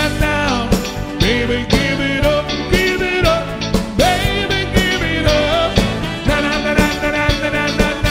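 Live band playing an upbeat song: a drum kit keeping a steady beat under bass guitar and a lead melody that slides between notes.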